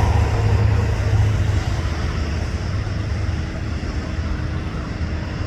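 Low, steady rumble of airliner jet engines, easing off slightly, with a faint steady whine joining about halfway through.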